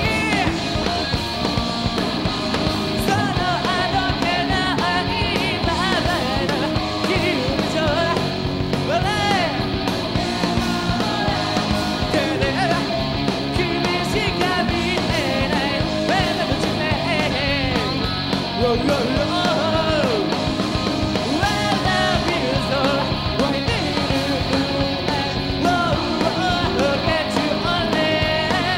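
Live rock band in full song: distorted electric guitars, bass and drums with a lead vocalist singing over them.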